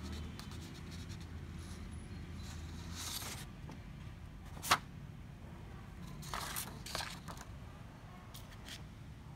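Printed paper sheets rustling and crinkling as they are handled, with one sharp click about halfway through.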